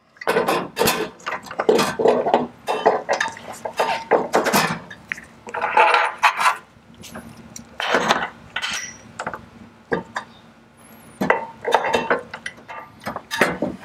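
Metal hardware clinking and knocking irregularly as washers, rubber bushings and a nut are fitted by hand onto the top stem of a shock absorber and the nut is started on its thread.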